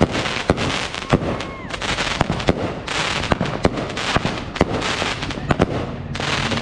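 Aerial fireworks bursting overhead: a dense, irregular string of sharp bangs and crackles.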